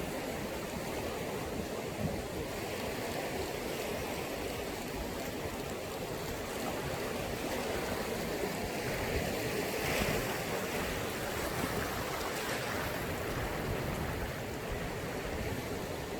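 Sea waves washing onto the shore: a steady surf hiss that swells as a wave breaks a little past the middle and then eases off.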